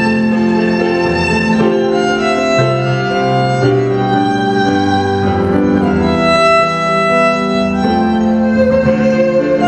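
Violin playing a slow melody of held notes over a lower sustained accompaniment.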